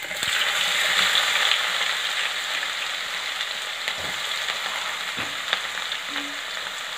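Crushed garlic dropped into hot sesame oil sizzles hard as it goes in, then the frying slowly eases off. A few faint knocks come near the middle.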